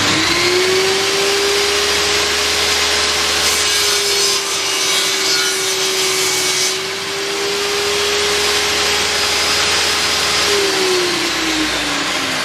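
Table saw with its newly fitted blade switched on: the motor spins up quickly to a steady high whine, and a rougher hissing noise joins it for a few seconds in the middle. About ten and a half seconds in it is switched off, and the pitch falls as the blade spins down.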